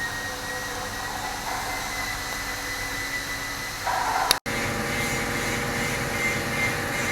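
Steady mechanical running noise with a thin high whine; about four and a half seconds in it cuts out for an instant and resumes as a lower, engine-like running sound.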